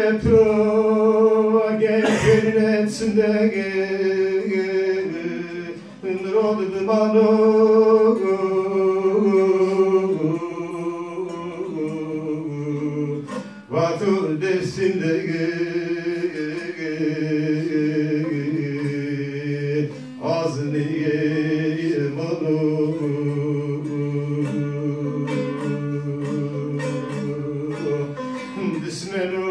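A man singing a slow song in long held notes, accompanied by a plucked string instrument, with brief breaks between phrases about six, thirteen and twenty seconds in.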